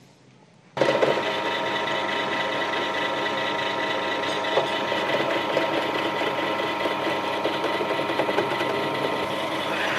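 Bench drill press switched on under a second in, its motor then running steadily with a constant hum while the twist bit is fed down into a wooden block.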